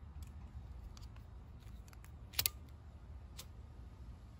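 A few short, sharp clicks over a steady low hum, the loudest a quick double click about two and a half seconds in.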